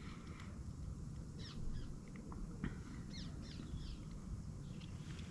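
A few brief, high bird chirps over a low, steady rumble: one about one and a half seconds in, and a quick cluster a little past the middle.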